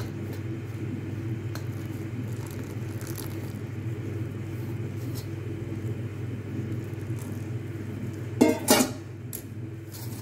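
A steady low mechanical hum runs under spoon-mixing of hot water into rice flour in a ceramic bowl, with faint scraping ticks and one brief louder scrape or clatter about eight and a half seconds in.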